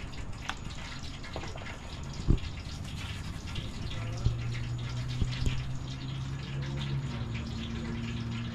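Seasoning shaken from a shaker container onto raw fish fillets in a foil pan: a light, patchy patter of small ticks, with one sharp knock about two seconds in. A low steady hum comes in about halfway through and shifts higher near the end.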